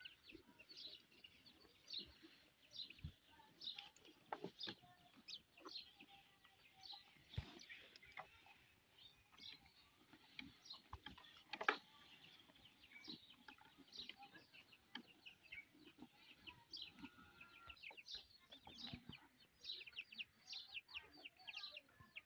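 Faint, rapid high-pitched chirping of birds, repeating in quick runs, with a few soft knocks and one sharper click about halfway through.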